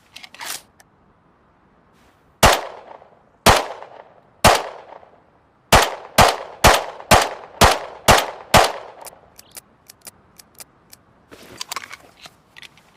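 Semi-automatic pistol gunshot sound effect: three single shots about a second apart, then a quicker string of seven shots at about two a second, each with a short ringing tail. A scatter of light clicks follows.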